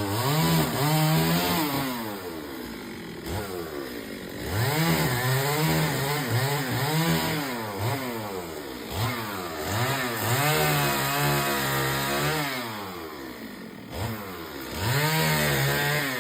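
Chainsaw cutting up a fallen tree: the engine revs up to a high steady pitch, holds it through each cut, then drops back, several times over.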